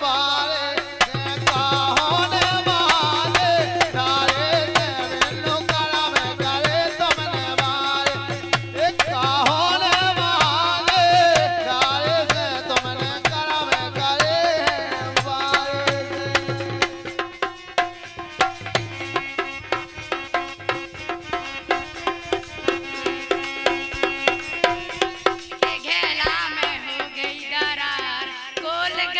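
Live Bundeli Rai folk music: a man singing into a microphone over an electronic keyboard and a rhythmic hand drum. The singing and drumming thin out past the middle, and a higher voice comes in near the end.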